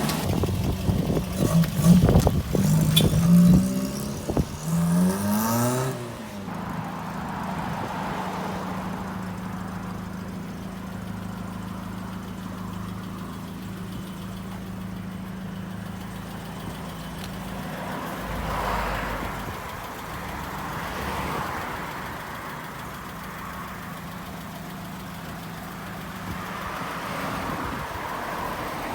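Car engine revving as it pulls away, rising in pitch several times over the first few seconds, then settling into a steady drone as it cruises, swelling slightly now and then.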